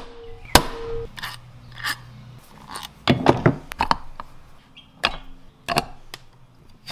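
Hammer blow on a hand impact driver with a Phillips bit, loosening a screw in a motorcycle rotor cover, about half a second in, with a brief metallic ring. Then clicks and clatter of steel screws and metal parts being handled and set down on a wooden bench.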